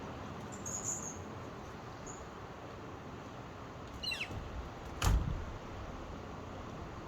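Steady rush of ocean surf, with short high bird chirps about a second in and a quick run of falling bird calls around four seconds. A single sharp knock with a low thump comes about five seconds in, the loudest sound.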